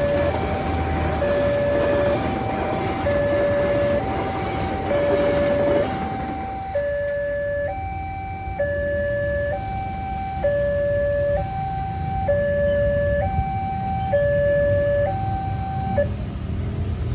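Railway level-crossing warning alarm sounding a two-tone electronic signal, a low and a higher note alternating about once a second. A low rushing noise runs under it for about the first six seconds and then drops away. The alarm cuts off suddenly near the end.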